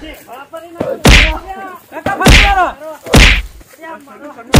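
Four loud whacks with a deep boom, about a second apart, from a cloth bundle swung down onto a man who is being held. Short pained cries come between the blows.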